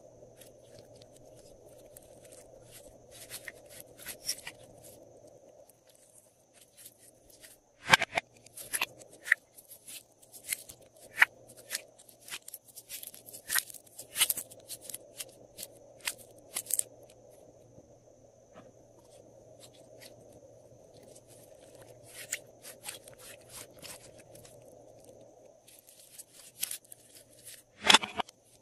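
Glossy slime squeezed, stretched and pulled out of plastic cube molds by hand, making clusters of sharp clicks and pops. The pops are loudest about eight seconds in and near the end, over a faint steady hum.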